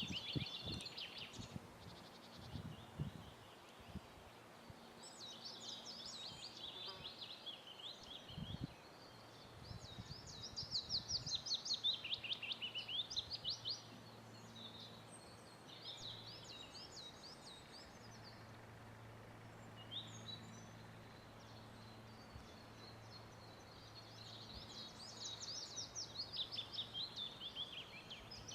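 A songbird singing repeated phrases of rapid, high notes, each phrase about two to three seconds long with pauses of a few seconds between them. A few low thumps sound in the first three seconds and once about eight seconds in.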